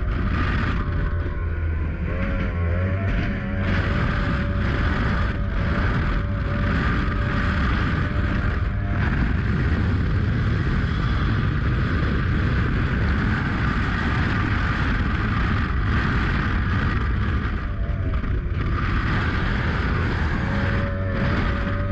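Mercury 2.0 V6 135 two-stroke outboard running at high speed on a sport boat, mixed with heavy wind and water rush. The engine note dips briefly about three quarters of the way through, then comes back up.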